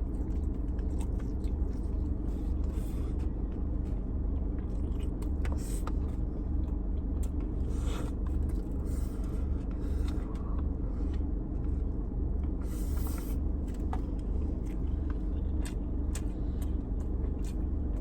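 A steady low rumble with a faint hum, and scattered faint clicks and scrapes.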